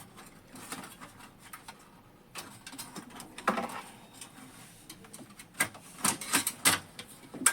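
Scattered light clicks and knocks from hands handling the opened laser printer's plastic parts and cables, with one louder knock near the middle and a quick run of clicks near the end.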